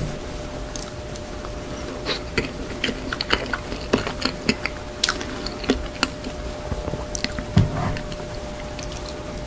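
Close-miked eating of a chocolate ganache layer cake: a metal fork cutting into the soft cake and tapping the wooden board, with chewing and wet mouth clicks. Many short, sharp clicks come at irregular intervals.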